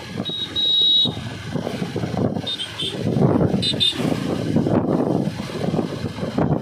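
Bajaj Pulsar 220 motorcycle running on the move, with a rushing, fluctuating noise of riding. Three short high-pitched tones sound over it, at about a third of a second in, two and a half seconds in and three and a half seconds in.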